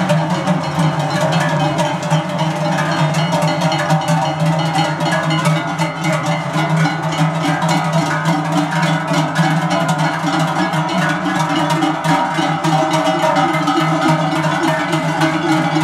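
Many large cowbells on leather straps, worn by cows walking in procession, clanging continuously and overlapping, with no pause.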